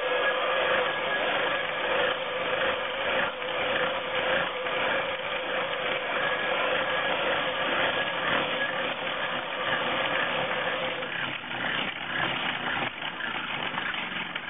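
Homemade soundbox heard through a contact mic, giving a dense, grainy noise full of quick scratchy strokes. A steady drone tone runs under it and stops about eleven seconds in.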